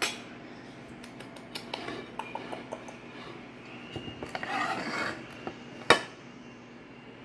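A metal serving spoon clinking and scraping against a pot while food is scooped out and served onto a plate. It makes scattered light clicks, a scraping stretch just past the middle, and one sharp loud clank about six seconds in.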